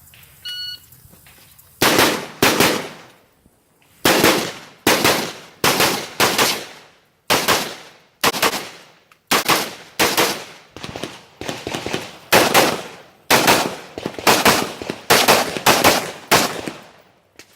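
A shot timer's start beep, then a string of rifle shots fired through a close-quarters course of fire, about twenty in all, often in quick pairs, each ringing out briefly.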